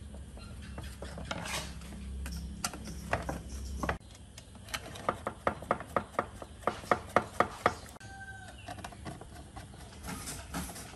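Screwdriver turning screws into a plastic generator control panel, with light handling knocks and then, about halfway through, a run of about a dozen sharp clicks about four a second.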